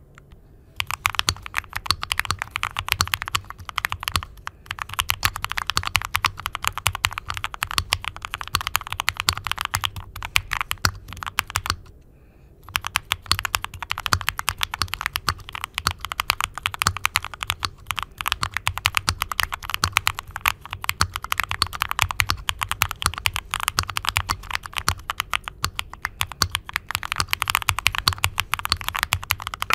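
Fast, continuous typing on an aluminium mechanical keyboard, the keystrokes clacking densely, with a short pause just before the start and another about twelve seconds in.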